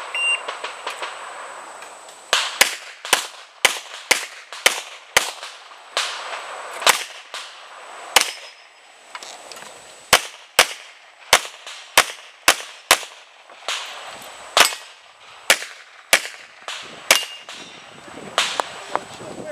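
Glock pistol firing about two dozen shots in quick pairs and strings, starting about two and a half seconds in, with a short break near the middle: a timed USPSA stage run. The shots come at roughly two a second.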